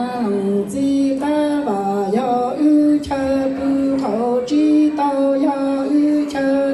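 A woman singing a Hmong song into a microphone over a PA system, holding long notes that step between a few pitches.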